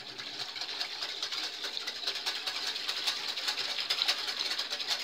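Metal wire whisk beating liquid gelatin in a glass bowl: a fast, steady run of wires scraping and ticking against the glass.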